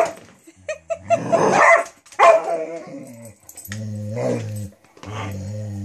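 A dog barking in play at a toy, a few loud sharp barks in the first half, then two low drawn-out growls of about a second each.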